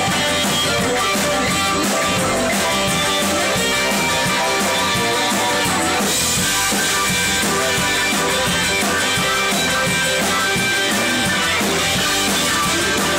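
A live rock band playing, with electric guitar and drum kit.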